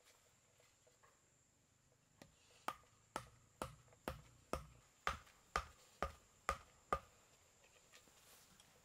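Chopping: about ten sharp strikes at a little over two a second, starting near the third second and stopping about seven seconds in, each with a short knocking ring.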